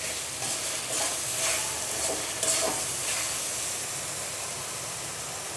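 Onions and ground spices frying in oil in a metal karahi, sizzling, while a metal spatula stirs and scrapes them against the pan. The stirring strokes come about twice a second for the first three seconds, then the sizzle goes on steadily.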